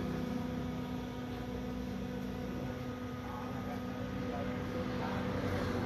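Steady machine hum at a constant pitch, the sound of a motor running without change.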